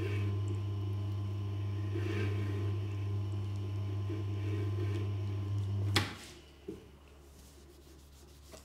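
Tormek sharpening machine's electric motor humming steadily while a steel scraper is held against its spinning leather honing wheel. About six seconds in, a sharp click comes and the hum stops at once: the machine is switched off. A light knock follows.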